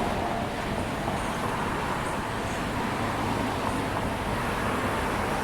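Suzuki SV1000's 1,000 cc V-twin running steadily on the road amid traffic noise, an even sound with no revving.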